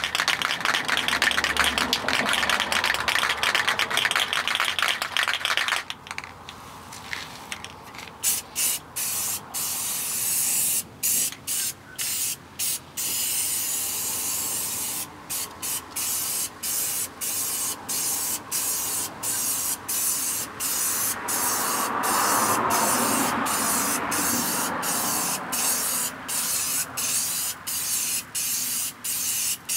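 Aerosol can of primer, its mixing ball rattling as the can is shaken for the first several seconds. Then it is sprayed in a long run of hissing passes, with many brief breaks between them.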